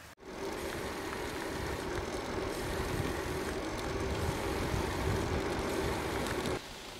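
Wind buffeting a handlebar camera's microphone with a low, fluctuating rumble and tyre noise as the bicycle rolls along an asphalt lane. It cuts off suddenly near the end, giving way to a quieter steady hiss.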